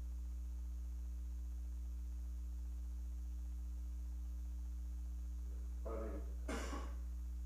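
Steady electrical mains hum in the audio feed, with a few fainter steady overtones above it. About six seconds in, a brief snatch of a man's voice and a short hiss break through.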